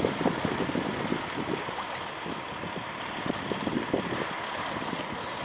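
Wind buffeting the microphone in irregular gusts over a steady background hiss.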